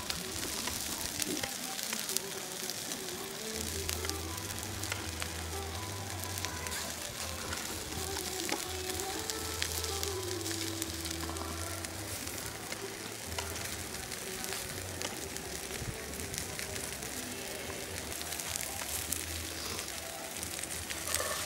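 Skewered tandoori chickens sizzling and crackling over an open wood fire, a steady hiss full of fine pops. Background music with a slow melody and a low, repeating bass plays under it.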